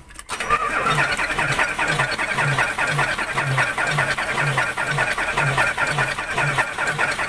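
Starter cranking the Isuzu 10PE1 V10 diesel, turning it over steadily with a rhythmic pulsing but not firing, while air is bled from the cracked-open injector lines.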